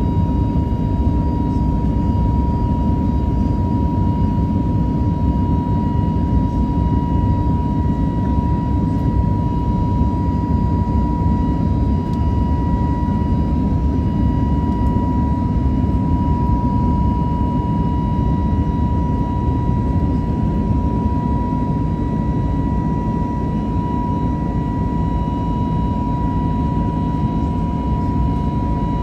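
Cabin noise of an Airbus A320neo with its jet engines running steadily at low power: a constant low rumble with a thin steady whine.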